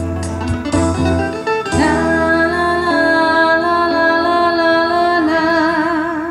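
Live pop music: a woman sings one long held note that enters about two seconds in and gains a wavering vibrato near the end, over electric guitar and a backing track with bass.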